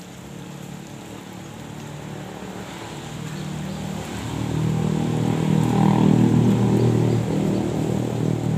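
An engine running, with a steady low hum that grows louder from about four seconds in to a peak around six seconds, then eases slightly.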